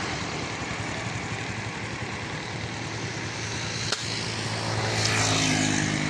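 A motor vehicle's engine drone with hiss, strengthening and growing louder in the last couple of seconds as it comes closer. A single sharp click sounds about four seconds in.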